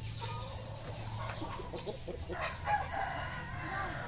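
Brahma chickens clucking, with a longer rooster crow about halfway through.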